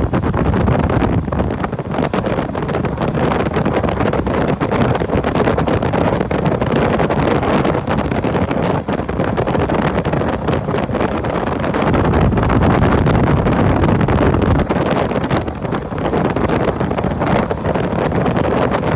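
Wind rushing over the microphone on a moving motorbike, with the bike running underneath. The low rumble swells for about two seconds around two-thirds of the way through.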